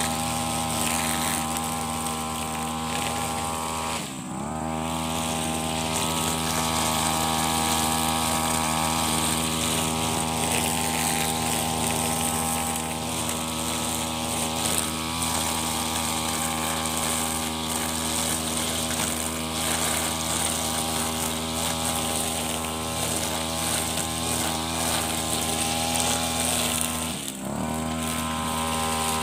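Brush cutter engine running at high speed, its nylon trimmer line cutting short grass. The engine speed drops briefly and picks back up twice, about four seconds in and near the end, as the throttle is eased off and opened again.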